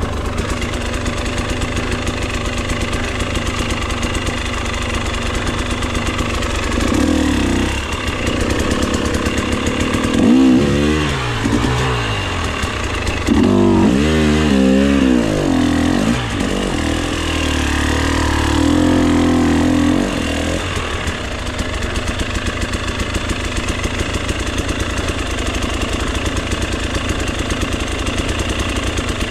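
Enduro motorcycle engine running at a steady idle, then revved in four bursts of throttle from about seven to twenty seconds in, with the pitch sweeping up and down each time, before it settles back to idle.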